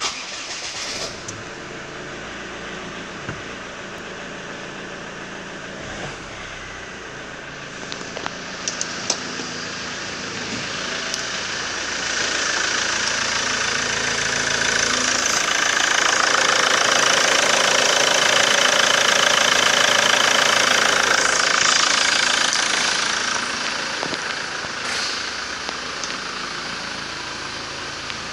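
2018 JMC Vigus 2.4-litre turbo-diesel engine starting and then running steadily. The engine is louder for several seconds in the middle before settling back. The wrecker rates it as tested good.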